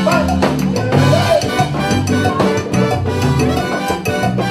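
Live Cuban salsa (timba) band playing at full volume: brass section of trumpet, trombone and saxophone over timbales, congas and drum kit, with a steady percussion beat.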